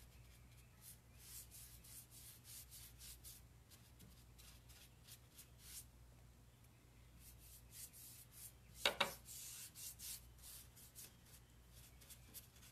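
Faint rubbing strokes as dark furniture wax is worked by hand into the crevices of a chalk-painted wooden hutch, with a short louder knock about nine seconds in.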